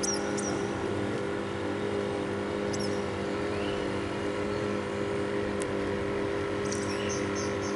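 A steady motor hum holding one pitch, with a few faint light clicks over it.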